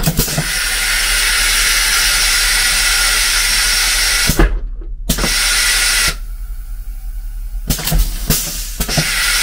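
Railway carriage's stainless-steel toilet being flushed: a loud rushing hiss of air and water for about four seconds as the bowl empties. Then clicks and two shorter rushes, about a second in and near the end, as the flush is pressed again.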